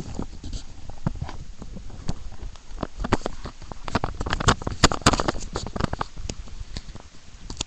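Irregular clicks, knocks and rubbing from a webcam being handled and moved about, thickest about four to five seconds in.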